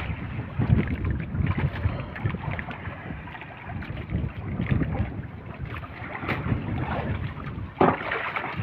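Wind buffeting the microphone on a small fishing boat, with irregular knocks and water noise from the hull, and a sharper knock near the end.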